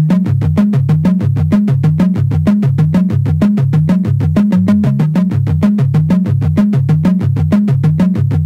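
Background music: an electronic synthesizer track with a fast, steady beat of about six strikes a second over a repeating bass line.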